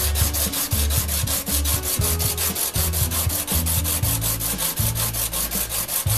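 Brazed tungsten carbide lathe tool bit rubbed back and forth on the 200-grit face of a diamond sharpening plate: a fast, even scraping of about six strokes a second. The bit is being hand-honed to dress its cutting edge.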